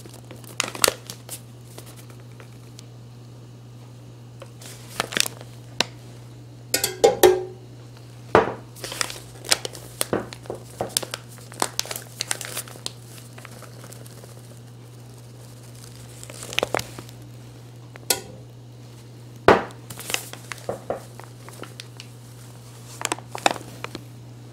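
A paper flour bag crinkling and rustling as flour is scooped out of it into a glass, in irregular bursts. Between them come sharp clicks and knocks of the glass and spoon.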